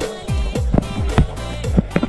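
Background music with a steady beat of deep bass-drum hits that drop in pitch, over sustained synth-like chords.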